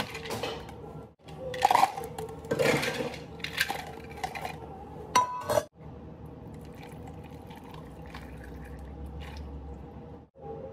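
Ice cubes clattering into a clear plastic cup, with a sharp clink about five seconds in. Then water poured steadily from a pitcher over the ice in the cup.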